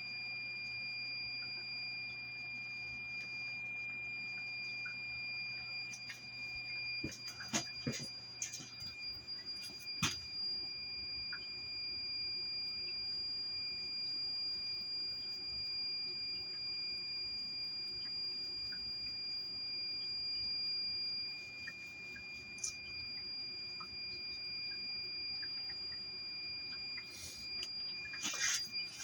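A steady high-pitched electronic tone, like an alarm sounding continuously, over a low hum, with a few scattered clicks and knocks.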